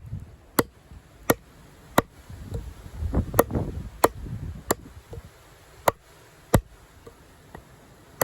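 Condor Heavy Duty Kukri, a thick carbon-steel chopping blade, striking into a log in a steady run of sharp chops, about one every two-thirds of a second, roughly ten strikes with a short break near the middle.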